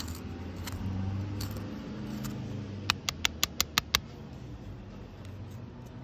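A quick run of about seven sharp metallic clicks within a second, about halfway through, as a small file is worked against a motorcycle fuel valve's metal body and lever, over a low steady hum.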